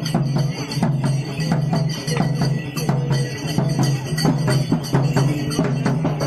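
Procession drums, round drums slung from shoulder straps, beaten in a fast, dense rhythm over a steady low hum.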